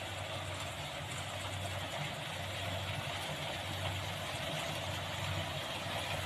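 Rice harvesting machine's engine running steadily with a constant low hum and a mechanical clatter over it.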